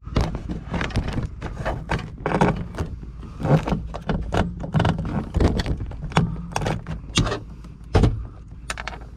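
Irregular knocks, clunks and rattles of someone moving about in and around a truck cab, over a steady low hum.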